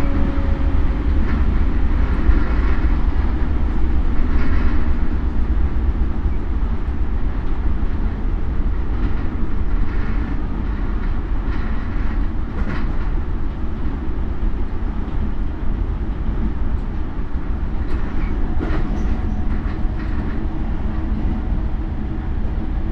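Running sound from aboard a Toei 10-300 series train with a Mitsubishi IGBT VVVF inverter: a steady low rumble of wheels on rail with scattered clicks from rail joints. An inverter and traction-motor whine falls slightly in pitch over the first few seconds.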